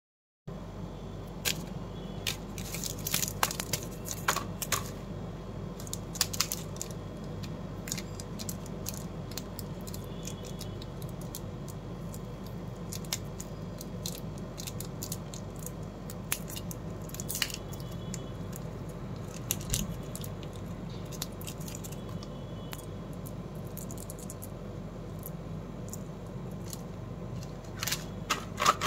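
Plastic candy wrappers and small candy boxes being handled and crinkled by hand: scattered crinkles and clicks, busiest in the first few seconds and again near the end, over a steady low background hum.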